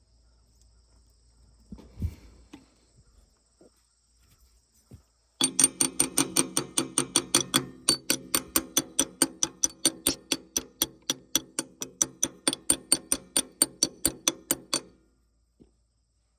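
A thump about two seconds in, then a motor runs with a steady hum and a sharp regular clicking about four times a second for roughly nine seconds before stopping abruptly.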